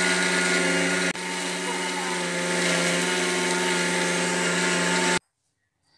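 Electric mixer grinder running at full speed, its small steel jar grinding roasted gram, sugar and cardamom pods into a fine powder: a loud, steady motor hum with a brief break about a second in. The motor cuts off abruptly near the end.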